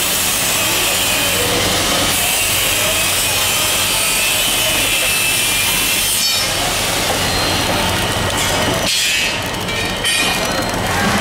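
Horizontal form-fill-seal flow-wrapping machine running, packing peanut chikki bars: a steady mechanical clatter and rubbing noise over a low hum.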